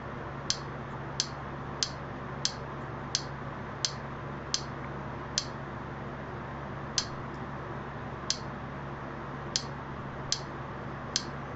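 Sharp single clicks, about a dozen, unevenly spaced half a second to a second and a half apart, as a streaming media-center menu is scrolled one cover at a time. A steady low hum runs underneath.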